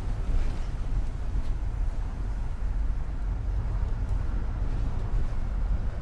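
Steady low rumble of a double-decker bus driving, heard from inside its upper deck.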